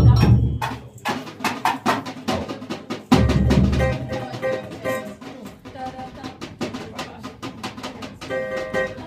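Samba percussion group playing a rhythm together: deep surdo bass drums, snare and repinique drums and a shaker, with heavy bass-drum hits at the start and again about three seconds in.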